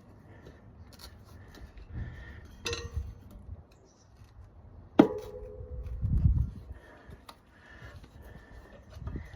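Metal tyre tools knocking and clicking against the wheel rim while a tyre bead is worked on over the tube. There is one sharp metallic strike about five seconds in that rings briefly, with lighter clicks and dull thumps around it.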